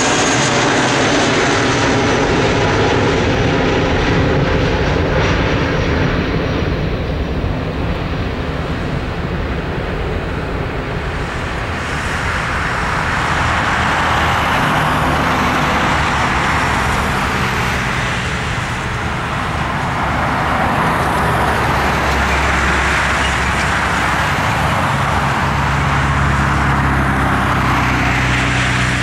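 Airbus A320's twin IAE V2500 turbofans at takeoff thrust as the jet climbs away: a falling whine right at the start gives way to a broad, steady jet rumble that rises and dips a little as the plane moves off.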